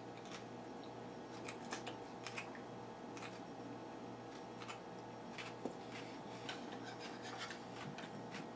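Person chewing a mouthful of raw cabbage and carrot salad: irregular, quiet, crisp crunches.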